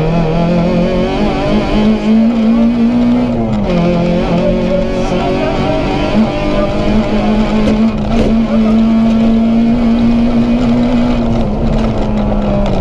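Citroën Saxo VTS rally car's 1.6-litre 16-valve four-cylinder engine at high revs, heard from inside the cabin. The note climbs, drops sharply about three and a half seconds in at a gear change, then holds high and steady for most of the rest, dipping slightly near the end.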